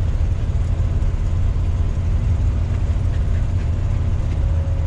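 Steady low rumble of a 1990 Fleetwood Bounder Class A motorhome's engine running, heard inside the coach.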